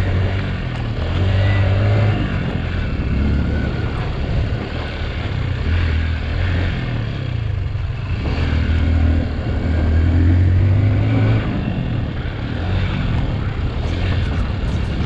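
Enduro dirt bike engine revving in repeated surges as the throttle opens and closes, with a few sharp knocks near the end.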